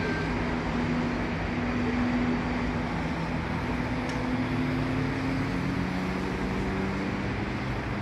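Road traffic on a city avenue: a steady wash of car and bus engines and tyres, with engine hum rising and falling slowly as vehicles pass.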